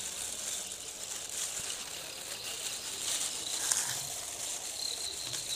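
Steady high-pitched insect trilling, with faint scattered clicks and scrapes of wire being twisted onto a wire-mesh fence.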